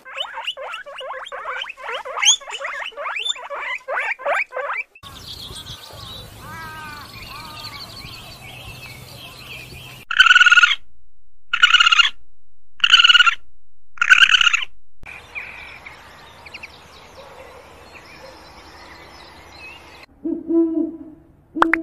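A sequence of different animal calls: a fast run of repeated calls, then quieter calls, then four loud separate calls a little over a second apart, and a lower call near the end.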